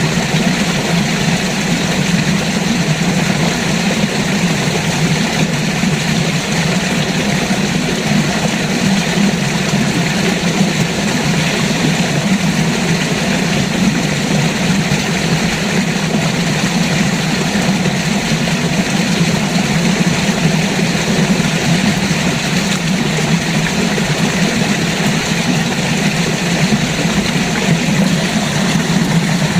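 A river flowing, a steady rush of water with an even, low-weighted sound that does not change.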